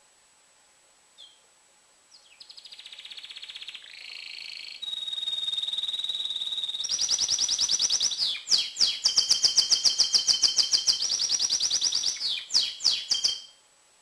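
Domestic canary in breeding condition, singing hard: a single short chirp, then about eleven seconds of unbroken song made of fast trills and rolls with a held whistled note in the middle. The song grows louder as it goes, loudest in the last few seconds, and stops sharply.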